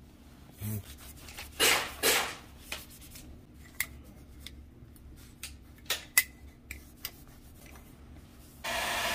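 Cloth rubbing and wiping over a rifle's handguard rail, with scattered light clicks and knocks. Two short, loud hisses come about one and a half and two seconds in, and a steady hiss starts near the end.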